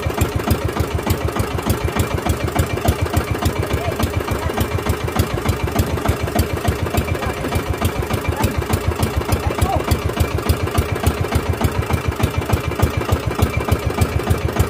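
The engine of a small outrigger fishing boat running steadily, with an even puttering beat.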